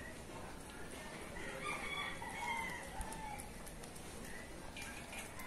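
A rooster crows once, from about a second and a half in to about three seconds. Under it, a Shih-poo chews its food from a stainless steel bowl with small scattered clicks.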